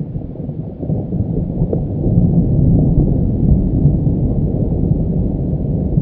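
Rockfall: broken granite slabs impacting the talus slope below the cliff, a deep, continuous rumble that builds about a second in and swells in the middle.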